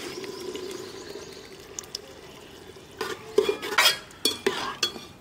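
Besan-and-yogurt kadhi batter poured from a steel saucepan into a clay pot of frying potatoes, with a low sizzle as it goes in. Then, about three seconds in, a steel ladle stirs and scrapes against the pot and saucepan in a run of sharp clinks.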